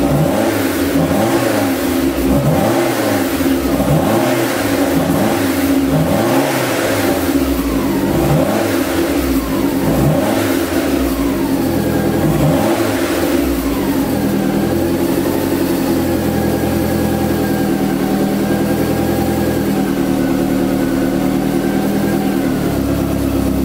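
Lancia Delta HF integrale Evo's turbocharged four-cylinder running through a 70 mm stainless steel exhaust from turbo downpipe to rear silencer, revved in quick throttle blips about once a second, each rising and falling. About fourteen seconds in it settles to a steady idle.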